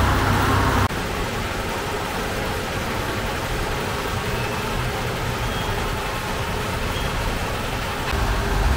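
Steady street traffic noise with no distinct events. A louder low hum cuts off suddenly about a second in.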